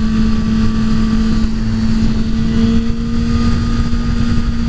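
2008 Kawasaki Ninja ZX-6R inline-four engine running steadily at highway cruising speed, its pitch edging up slightly about halfway through, over a constant low rumble of wind on the rider's microphone.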